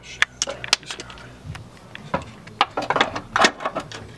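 Ratchet and socket tightening bolts on a steel suspension arm: a run of irregular sharp metallic clicks and clinks, busiest in the second half.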